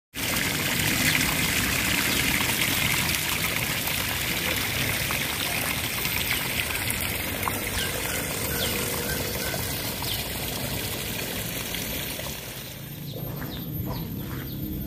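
Water running and pouring steadily, an even rushing trickle like a stream or channel flowing; it gets a little quieter near the end.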